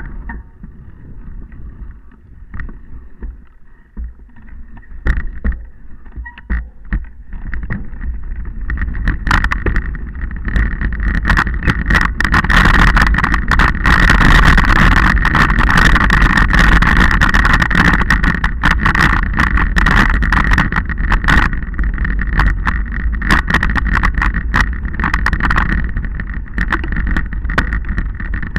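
Wind rushing over the microphone of a camera riding fast along a rough, stony dirt trail, with a constant clatter of rattles and knocks from the ride over rocks. The noise builds from about eight seconds in, stays loud through the middle and eases a little near the end.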